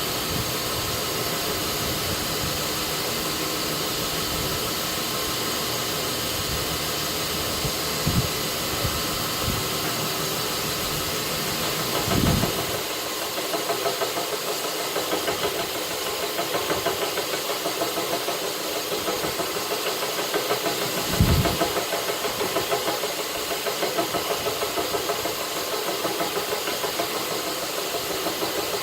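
North Ridge Tool belt grinder running steadily with a rough hiss. From about halfway the level pulses in a steady rhythm of a little over one a second, and there are two short low thumps.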